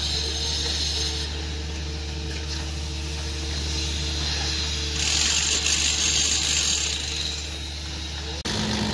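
A steady low mechanical hum runs throughout, with a louder hiss for about two seconds past the middle. The sound cuts off abruptly near the end.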